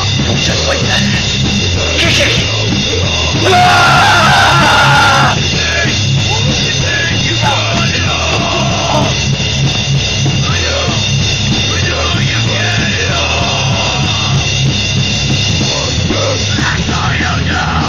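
Loud heavy rock music with a driving, evenly pulsing beat.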